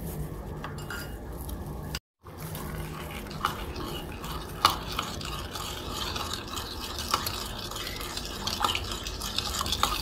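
Metal spoon stirring spiced water in a ceramic plate: continuous liquid swishing with several sharp clinks of the spoon against the plate. The audio drops out briefly about two seconds in, and the stirring follows.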